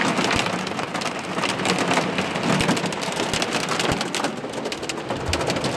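Heavy rain and pea-size hail pelting a car's windshield and roof, heard from inside the car: a dense, steady drumming with many small sharp hits.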